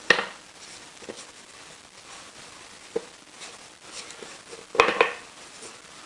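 Cast-iron and steel lathe tailstock parts knocking and clinking as they are handled: a sharp clank at the start, a few light taps, and a louder metal clatter near the end.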